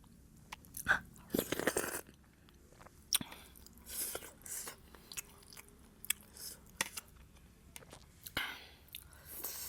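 Close-miked mouth sounds of a person chewing a big mouthful of food: irregular wet smacks and clicks, with louder bursts about a second in and again near the end.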